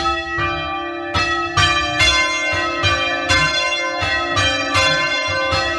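A ring of three Mears church bells, the tenor about 231 kg in C, rung full-circle with the bells striking in turn, about two to three strikes a second. Very loud and ringing on between strikes, with no insulation between the bells and the ringing room below them.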